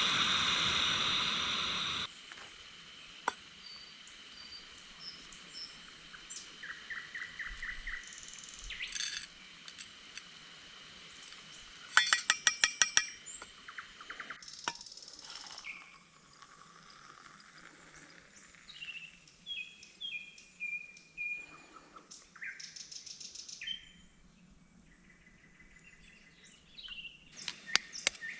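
Several small birds chirping and calling, with a loud rapid trill about twelve seconds in. For the first two seconds a steady rushing noise covers everything, then cuts off suddenly.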